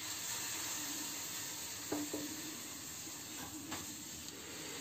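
Vestel drip coffee maker heating its water at the start of a brew cycle: a steady low hiss and sizzle from the heater, with a brief faint tone about two seconds in.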